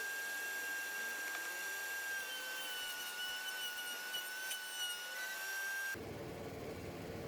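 Wood router running with a steady high whine, its pitch sagging slightly in the middle as it cuts a groove in the wood. The whine cuts off about six seconds in, giving way to a low steady noise.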